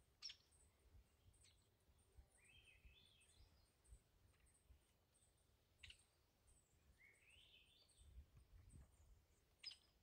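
Faint, distant songbird: two short phrases that rise in pitch and three sharp high chirps, over a scatter of very faint high ticking.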